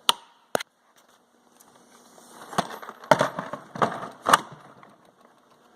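Two sharp plastic clicks, then a loaded Milwaukee Packout rolling tool box rattling and clattering as it is wheeled along, with four loud knocks in the middle of the run.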